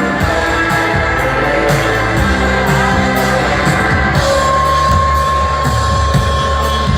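Live pop band performance: a woman singing over a steady drum beat and deep bass, with a steady high tone coming in about four seconds in.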